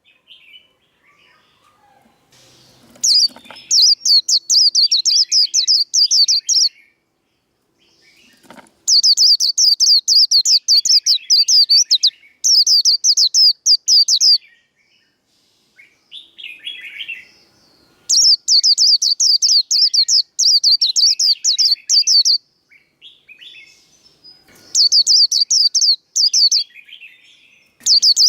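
White-eye (vành khuyên) singing its 'líu' song: bursts of fast, evenly repeated high notes, each lasting two to four seconds, broken by short pauses with softer chirps in between.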